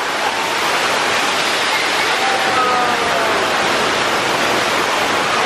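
Staged flood on a studio-tour special-effects set: a torrent of water pouring and splashing into a mock subway station, a loud steady rush.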